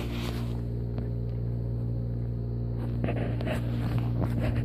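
Steady low electrical hum, with a few faint taps and rustles of movement near the end.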